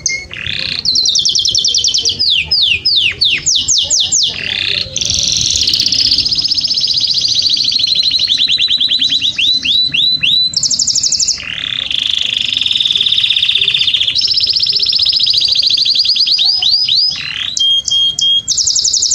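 Domestic canary singing a long, continuous song of rapid trills and rolls. Phrases change every few seconds, alternating between steady buzzy rolls, very high fast trills and runs of repeated notes that each sweep downward in pitch.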